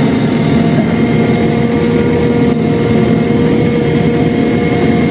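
Diesel engine running loudly and steadily at one unchanging pitch.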